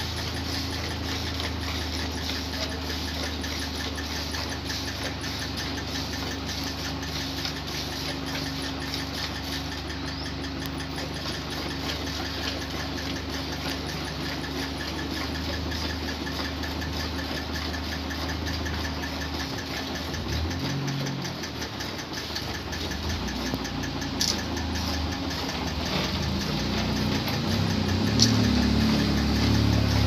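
An engine running steadily with a low, even hum. It falters briefly about two-thirds of the way in, then runs on louder near the end.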